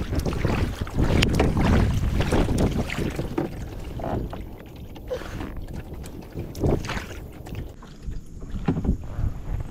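Water splashing and sloshing around a kayak in uneven bursts, with a few sharp knocks and some wind buffeting the microphone.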